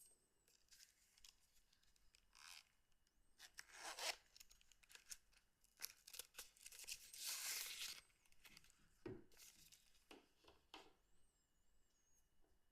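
Faint handling noise: short rustles, rubbing scrapes and a few light clicks of hands moving over the phone's plastic body, with a longer rustle of about a second past the middle.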